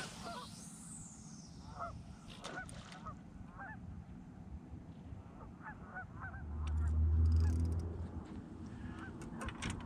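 Geese honking over and over, many short calls overlapping like a flock. A brief falling whoosh comes at the very start, and a low rumble swells and fades around seven seconds in.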